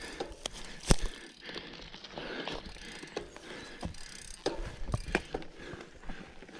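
Mountain bike riding a dirt trail: the rear hub's ratchet clicking while coasting, with irregular knocks and rattles from the bike over bumps, a sharp knock about a second in.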